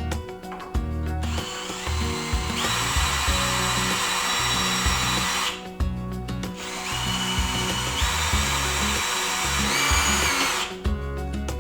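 Power drill running in two bursts of about four seconds each, its motor stepping up in speed partway through each, over background music.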